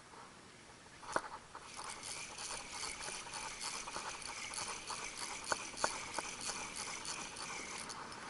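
Daiwa 13 Certate 2004CH spinning reel cranked fast, its gears making a rapid, even rattle that starts after a sharp click about a second in, as a hooked horse mackerel is reeled up.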